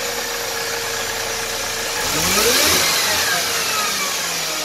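Mercedes-Benz M271 four-cylinder petrol engine idling, then revved once about two seconds in: the pitch climbs quickly and falls back to a steady idle within a second or two.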